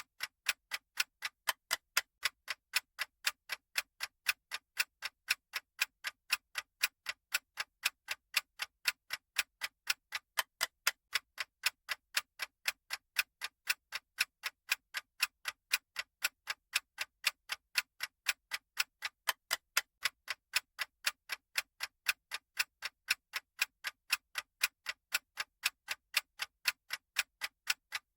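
Clock-style ticking sound effect of a countdown timer: even, sharp ticks at a steady pace of about three a second.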